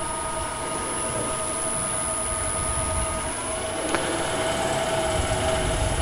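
Wood lathe running, its motor giving a steady whine of several tones over a low rumble. About three seconds in, one of the tones drops away and another shifts slightly, and a single click follows a moment later.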